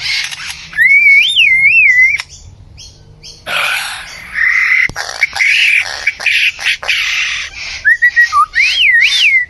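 A bird calling: loud warbling whistles that slide up and down in pitch, about a second in and again near the end, with harsh, scratchy chirps in between.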